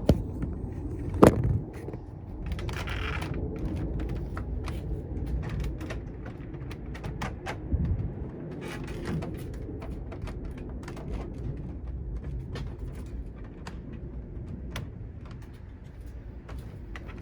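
Plastic TV back case being handled and worked at by hand: scattered clicks and knocks, one sharp knock about a second in and a run of clicks about halfway through, over a steady low background rumble.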